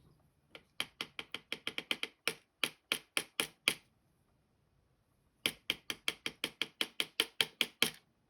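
Small metal clicks from working a dimple lock's plug while its key pins are taken out. They come in two quick, even runs of about five clicks a second, with a pause of under two seconds between them.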